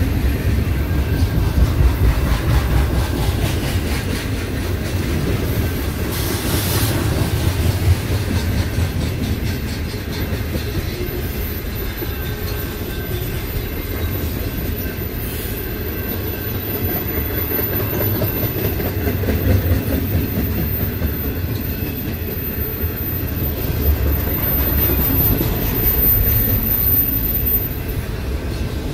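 Double-stack intermodal container train rolling past, a steady rumble of steel wheels on the rails with some clickety-clack from the cars.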